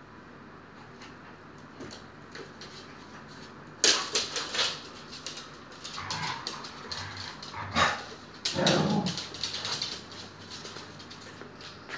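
Siberian husky mother and puppies barking and yipping in play: a cluster of sharp barks about four seconds in and a longer bout from about eight to ten seconds. Light clicks of claws on a wooden floor between them.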